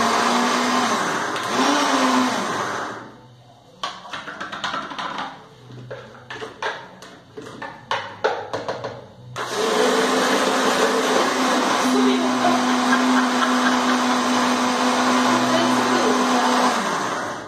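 Countertop electric blender running with its steady motor hum, cutting off about three seconds in. A few seconds of knocks and clicks follow as the jar is opened and a spoon stirs the mix. Then the blender runs again for about seven seconds and stops near the end.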